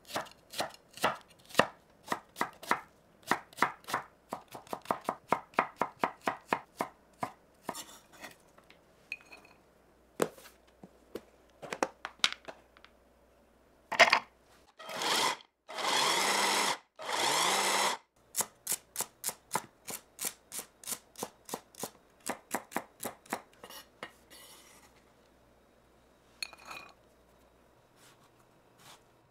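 Chef's knife chopping onion on a wooden cutting board: rows of quick, even knocks that speed up for a while. Midway, onion pieces are dropped into a plastic mini food chopper, which then runs in three short pulses, and the knife chopping starts again after them.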